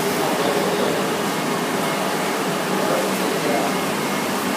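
UV curing conveyor dryer running: a steady rush of air from its cooling fans with a faint low hum.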